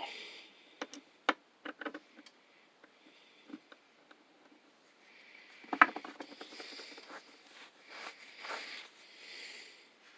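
Metal air-hose fittings and couplers being handled: scattered light clicks and taps, the sharpest about six seconds in, with soft rustling in the second half.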